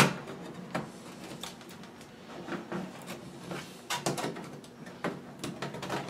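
Hands working the plastic bottom cover of a Dell Latitude E6320 laptop loose at its edges: a run of irregular plastic clicks, knocks and scrapes, starting with one sharp knock.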